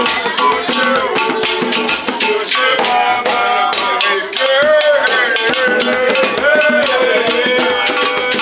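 Music with a quick, steady percussion beat and a shaker rattle under a wavering melodic line.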